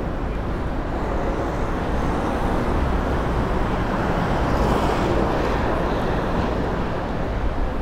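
Street traffic noise: a vehicle passes, the sound swelling a few seconds in and fading again.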